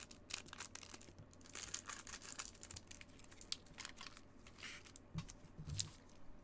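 Gloved hands flicking through and sorting a stack of trading cards: quick papery clicks and rustles, with a few soft low knocks about five seconds in as cards are set down on the mat.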